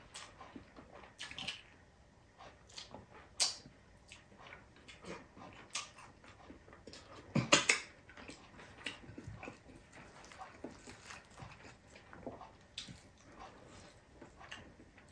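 Close-miked eating sounds: chewing and lip smacks with scattered small clicks, and a louder cluster of clicks about seven and a half seconds in.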